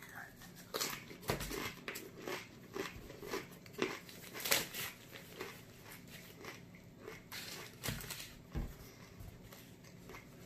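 Chewing and crunching of a slightly stale Paqui One Chip tortilla chip: a run of short, crisp crunches, the loudest about four and a half seconds in. Later come rustles and snaps as a nitrile glove is peeled off, then a paper napkin handled near the end.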